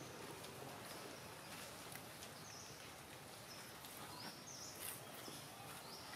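Quiet outdoor ambience: a steady faint hiss with about six short, high-pitched chirps spread through it, some rising in pitch, and a few faint clicks.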